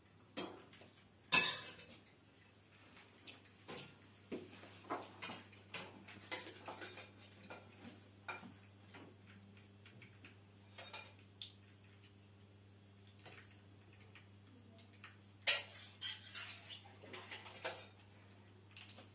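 Fork, bowl and plates clinking and clattering in irregular clicks, with two louder clanks about a second and a half in and about fifteen seconds in, over a faint steady low hum.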